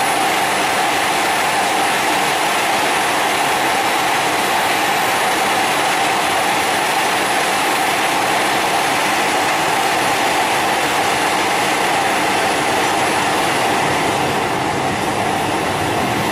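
Italo AGV high-speed electric train moving along a station platform: a steady rushing noise with a constant hum, not rising or falling.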